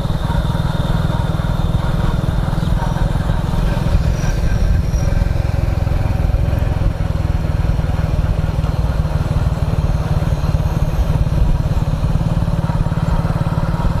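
Motorcycle engine running steadily on the move, with a heavy low rumble of engine, wind and road. Over it is a faint, steady, high chirring of crickets, clearest in the first few seconds.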